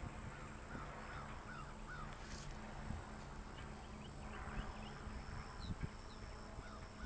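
Birds chirping faintly, a short run of four quick, repeated calls about a second in, then scattered higher chirps, over a low outdoor rumble.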